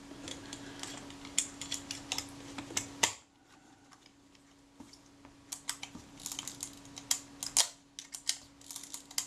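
Small, sharp clicks and ticks from a Kodak Retina IIC's mechanism and top cover being worked by hand while its frame counter is checked, over a steady low hum that drops out about three seconds in and returns shortly after.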